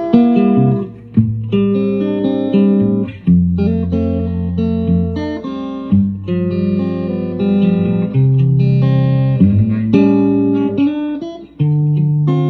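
Clean electric guitar played through a STRICH Dynacomp analog compressor pedal: chords and notes picked at an easy pace, each ringing out with long, even sustain, for a fuller, richer tone.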